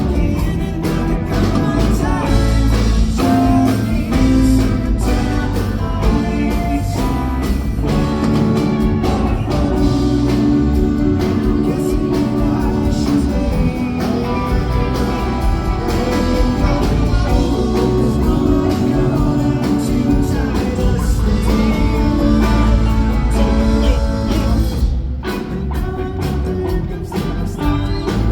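Rock band playing live and loud, with electric guitar, bass, drums and singing. The band thins out briefly near the end.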